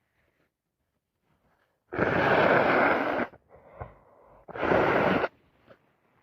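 A woman with a cold and allergies sneezing hard twice, long wet bursts with a quick breath drawn in between.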